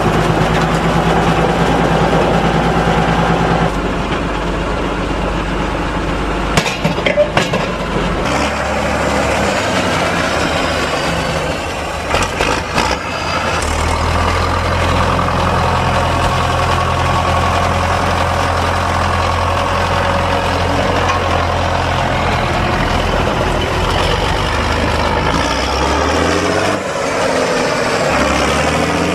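Fendt Favorit 614 LSA tractor's six-cylinder diesel engine running as it pulls a grading box, its pitch shifting several times and rising near the end. There are a few knocks about seven seconds in and again about twelve seconds in.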